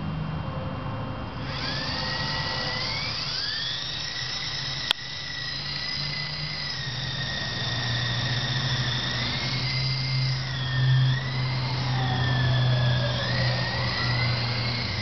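Blade CX3 coaxial electric micro helicopter spooling up: its motors and rotors rise into a high whine about a second and a half in, then hold, the pitch wavering as the throttle changes, over a low hum. A sharp click comes about five seconds in, and a second tone glides down near the end.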